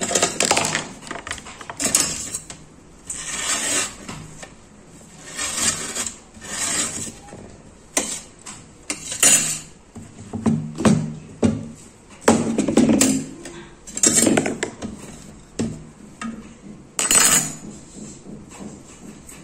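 A knife and spoon working aloe vera leaves on a stainless steel plate: irregular scrapes through the leaf skin and gel, with clinks and a few sharper knocks of metal on the plate.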